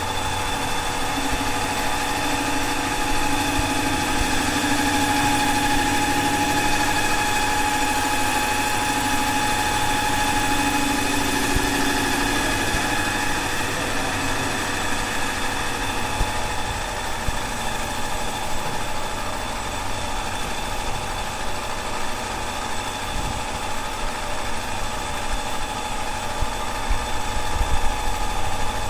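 A motor running steadily, with a constant whine over a low rumble.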